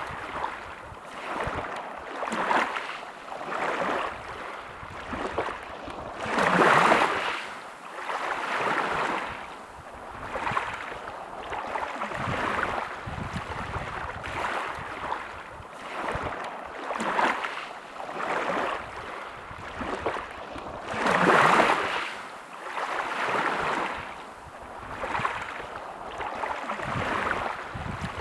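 Sea waves washing onto a beach in repeated surges of hiss, each swelling and falling away every couple of seconds, with two larger waves breaking about a quarter and about three-quarters of the way through.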